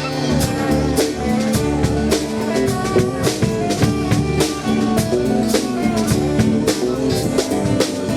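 Live band playing a song: a drum kit keeps a steady beat with kick drum and snare hits, under sustained notes from other instruments.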